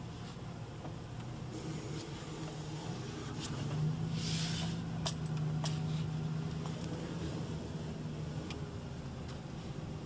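Old Dodge pickup truck's engine running, heard from inside the cab as a steady low hum that grows stronger for a few seconds from about four seconds in. A brief hiss and a few faint clicks come around the middle.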